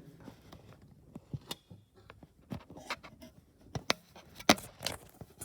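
Handling noise as a camera is picked up and repositioned: a scattered series of irregular clicks, taps and knocks, the loudest about four and a half seconds in.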